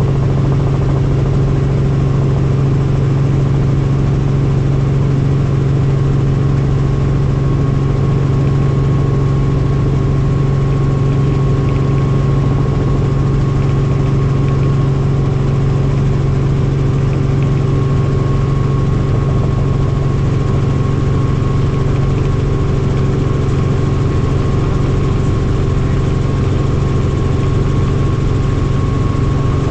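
Helicopter's turbine engine and rotor running as a steady loud drone with a faint high whine above it.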